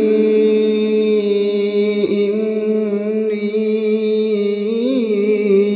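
A reciter's voice chanting Quran recitation in long, held melodic notes, with a brief break about two seconds in and a small rise and fall in pitch near the end.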